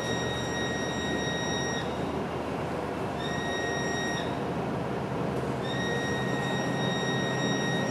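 A MAN NL323F bus's loud, unusual high-pitched whine, holding one steady pitch over the bus's running noise. It cuts out twice and comes back each time, once only briefly.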